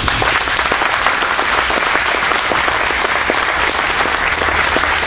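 Audience applause: many hands clapping, breaking out at once and holding steady.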